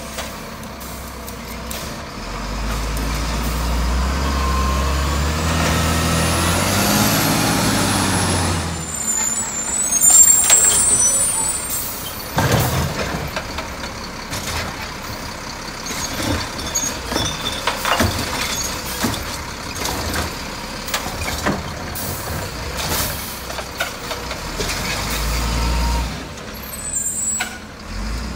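Diesel refuse truck working: the engine revs up a couple of seconds in, an air brake hisses loudly around ten seconds in, then a string of clanks and knocks follows, with another engine surge near the end.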